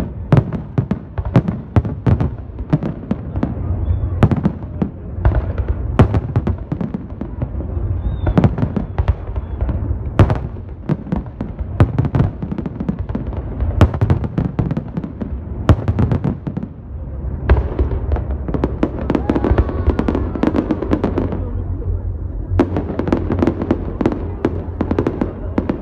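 Aerial fireworks display: dozens of sharp shell bursts in quick succession over a continuous low rumble of booms.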